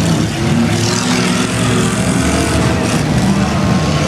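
Engines of several demolition derby cars running and revving at once, their pitches rising and falling.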